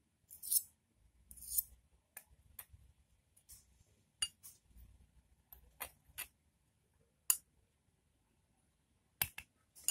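A spoon clinking and scraping against a container in scattered, irregular taps while sago starch and dish soap are worked together for slime.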